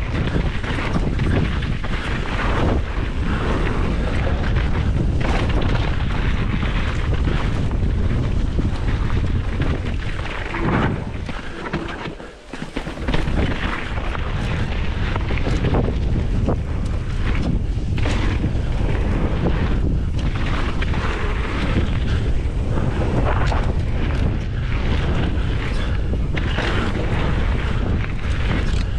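Strong wind buffeting the microphone of a camera carried on a moving mountain bike, a loud continuous rumble with short knocks and rattles from the trail scattered through it. The rumble drops away briefly about twelve seconds in.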